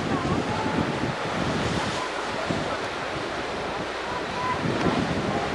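Ocean surf breaking and washing, with wind buffeting the microphone, a steady rushing noise.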